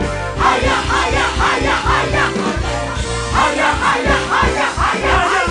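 Gospel praise-and-worship music: singing over a band with a bass line and a steady beat.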